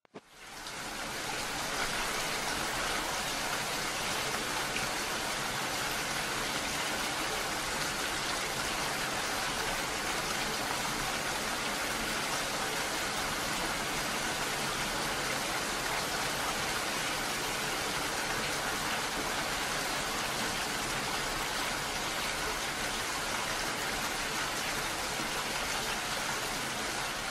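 Heavy rain falling in open country, a steady even hiss that fades in over the first second or two.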